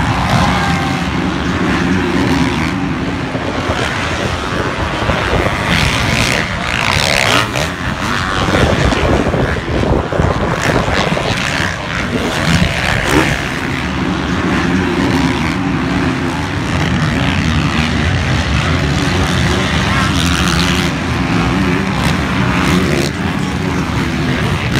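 Motocross bike engines racing around the track: a steady, loud engine drone that rises and falls as the riders rev and back off, with a rougher, louder stretch a few seconds in.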